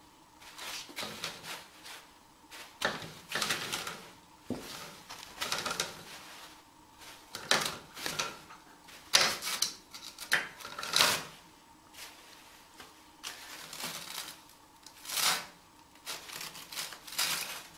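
Toilet paper being tugged off a wall-mounted roll: the roll spins on its holder and the loose paper rustles and crumples, in irregular short bursts.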